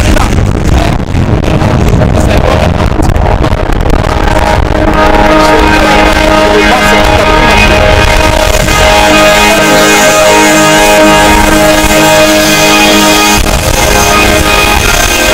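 Music with guitar played at very high volume through car audio systems with Beyma and Tec front speakers; heavy bass in the first few seconds, then held guitar tones.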